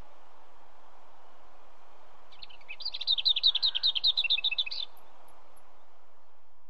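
Lesser whitethroat singing: one fast rattle of short repeated notes on much the same pitch, lasting about two and a half seconds and starting a little over two seconds in, over steady background noise.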